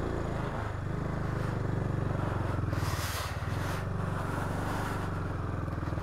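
KTM Duke 250's single-cylinder engine running at low revs with a steady, even pulse as the motorcycle creeps over black ice, with a brief hiss about three seconds in.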